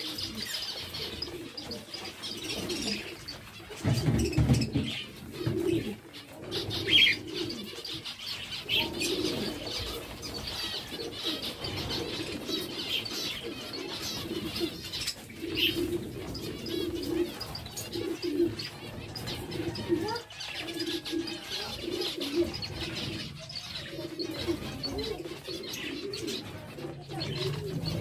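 A flock of zebra finches chirping and calling, over a low call that repeats about once a second. There are a few louder low thumps about four seconds in.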